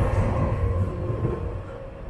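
Berlin S-Bahn class 480 electric multiple unit pulling away from the platform: a low rolling rumble with a steady whine, fading as the train recedes.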